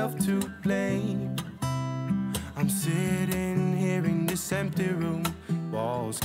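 Background music: a song with strummed acoustic guitar and a sung melody.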